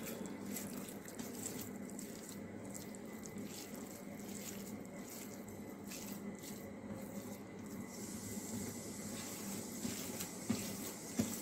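Hands kneading moist fresh chhena against a stainless-steel plate: faint, repeated soft wet rubbing and squishing strokes as the cheese is mashed smooth.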